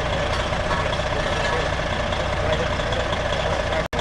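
A heavy vehicle's engine idling steadily, with a low rumble; the sound cuts out for an instant near the end.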